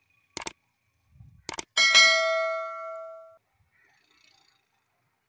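Subscribe-button sound effect: a few quick mouse clicks, then a bright bell ding that rings for about a second and a half and fades away.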